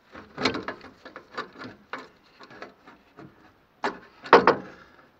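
Irregular metal clinks, knocks and scrapes as a rusty exhaust downpipe and its clamp are worked off a Morris Minor's exhaust manifold by hand. Two louder clusters of knocks come about half a second in and near the end.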